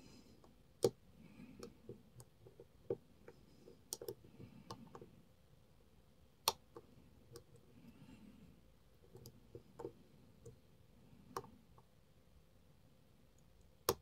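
Small metallic clicks and taps of a lock pick working the pins of a five-pin pin tumbler cam lock under tension, during single-pin picking. The clicks come irregularly, with three sharper ones about a second in, midway, and near the end.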